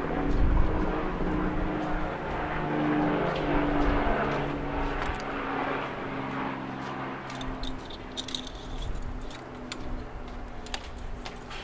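Engine oil pouring from a 1-litre can into a car engine's oil filler: a splashing pour, strongest in the first few seconds and thinning out, with a faint tone that slowly falls in pitch. A few light clicks near the end.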